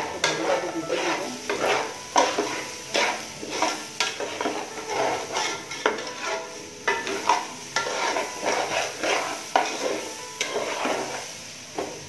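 A flat metal spatula stirring and scraping raw polao rice and grated carrot as they fry in oil in a metal pot. The scraping comes in repeated strokes, roughly one or two a second, with sharp clicks of metal striking the pot.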